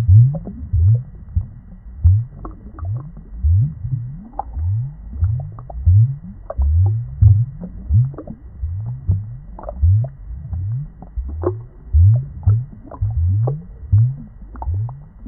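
Muffled underwater gurgling and bubbling, as heard in an aquarium: a steady run of low, short rising gloops, about two a second, with faint clicks over them.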